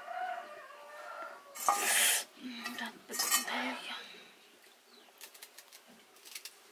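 Metal pots, dishes and utensils clattering: two loud bursts of clatter about two and three seconds in, then lighter scattered clinks.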